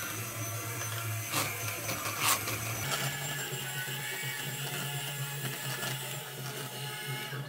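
Moulinex electric hand mixer running, its beaters whisking cake batter in a plastic bowl. The motor hum steps up in pitch about three seconds in, with a couple of sharp knocks shortly before.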